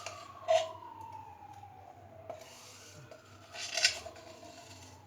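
Ground carob powder being scraped and handled in a grinder cup: two short scraping rustles, about half a second in and a louder one near four seconds in, with a few small clicks.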